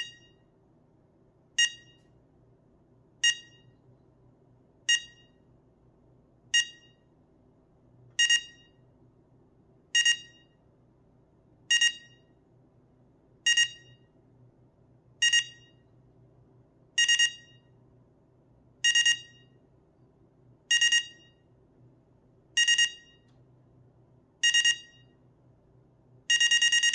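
Sharp SPC100D digital alarm clock's alarm sounding: single shrill electronic beeps about every 1.8 seconds, each a little longer than the last, then switching near the end to rapid continuous beeping. This is the clock's ascending alarm.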